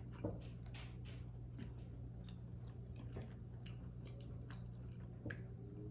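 A person chewing a mouthful of fish, with soft, irregular mouth clicks and smacks.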